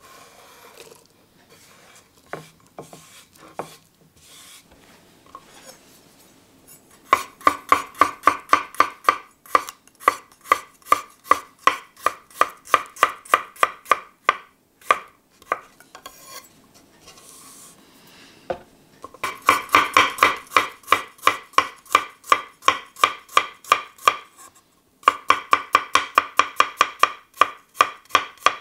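Chef's knife thinly slicing garlic cloves on a wooden chopping board: quick, even taps of the blade on the wood at about three a second, in three long runs with short pauses between. In the first few seconds there are only soft scraping and handling sounds as chopped chilli is pushed off the board into a stone mortar.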